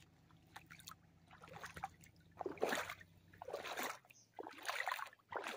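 Feet wading into shallow lake water, a sloshing splash with each step, several steps roughly a second apart, growing more distinct after the first couple of seconds.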